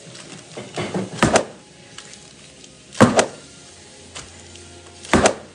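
Metal brownie pan lifted and dropped flat onto a stone countertop, three sharp bangs about two seconds apart.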